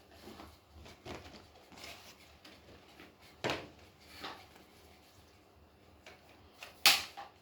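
Plastic toy and packaging being handled: faint rustling with a few sharp clicks, the loudest near the end.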